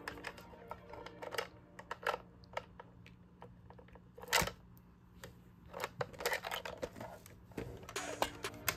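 Scattered light clicks and taps of handling, with a slightly stronger knock about four and a half seconds in, over a faint steady hum that stops about seven and a half seconds in.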